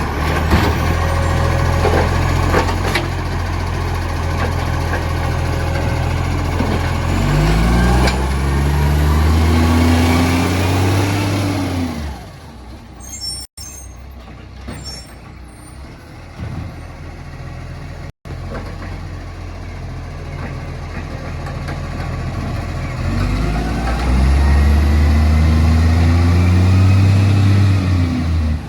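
Diesel engine of a garbage truck with a leaking exhaust, running loud and revving up, then falling away about twelve seconds in to a quieter stretch with a few short air hisses, and building up and revving again near the end.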